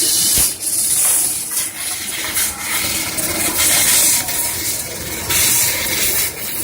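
Fiber laser cutting machine at work: the cutting head's assist-gas jet hissing, swelling and easing in stretches of a second or so as it cuts, over a faint steady machine whine.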